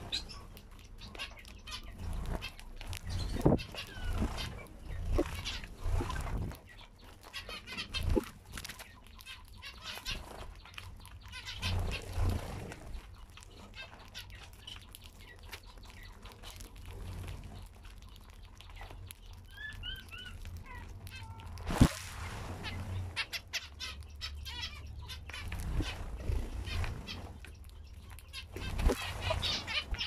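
A flock of zebra finches giving short, repeated calls while pecking at seed, with scattered sharp clicks and wing flutters. A single loud knock comes about two-thirds of the way through.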